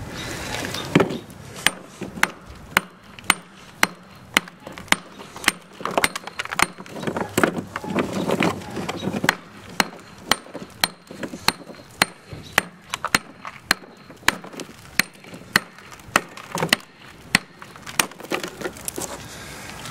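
Hammer striking hard-rock ore, about two sharp blows a second in a steady rhythm, breaking large rocks into smaller pieces by hand.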